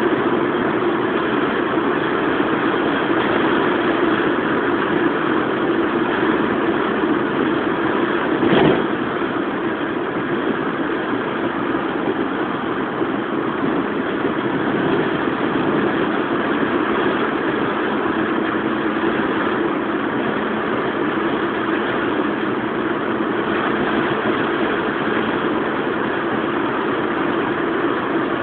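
Steady, loud rushing noise with a low hum in it, and a single sharp knock about a third of the way through.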